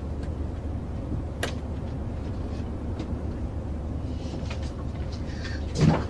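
Steady low drone of an airliner cabin, with a single sharp click about a second and a half in and light clicks and rustling building up near the end.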